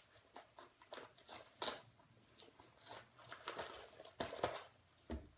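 Nylon plate carrier being handled: a string of rustles, soft knocks and short ripping sounds of Velcro, with the loudest rips about a second and a half in and about four seconds in.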